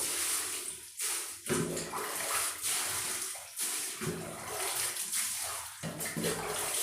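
Water running and splashing as a birdcage is washed and rinsed, with a steady hiss that breaks off briefly a few times.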